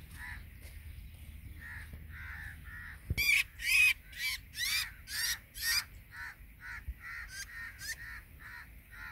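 Birds calling with harsh, repeated calls: fainter at first, then a quick run of about six loud calls some three seconds in, about two a second, trailing off into fainter calls again.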